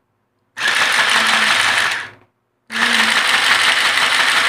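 Opened mini sewing machine's small electric motor and plastic drive gears running in two short bursts, switched on about half a second in, stopped, and started again near the middle. The drive gear is loose against the motor gear, which the owner says is why it makes this noise.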